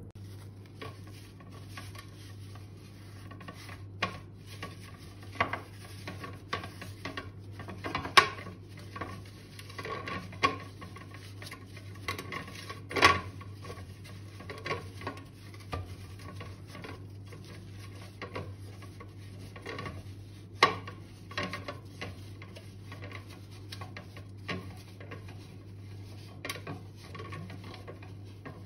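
Metal bundt cake pan being greased with butter on a paper towel: soft rubbing, with irregular clinks and knocks as the pan shifts on the counter, a few of them sharp.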